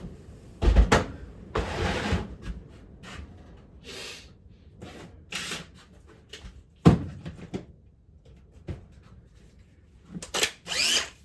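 Tools and hardware being handled and put away on a workbench: irregular knocks, clunks and short scrapes, with sharp knocks about a second in and again about seven seconds in.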